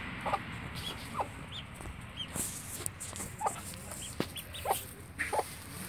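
A hen clucking softly in short single notes every second or so, with call ducklings giving brief high peeps in between.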